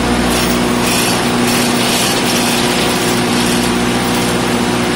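Generator set's engine running at a steady speed: a loud, constant-pitch machine hum with noise over it.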